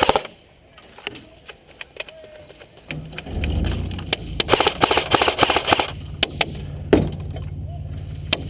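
Airsoft guns firing in full-auto bursts: a short rapid burst at the start, a longer stretch of rapid fire in the middle, and scattered single shots. From about three seconds in, a vehicle engine drones steadily underneath.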